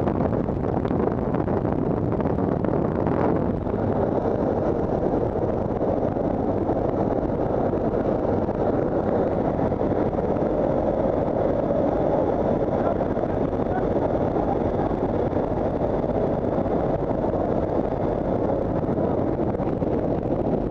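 Steady loud rush of wind and engine noise at the open paratroop door of a military transport aircraft in flight, with a faint high steady whine over it.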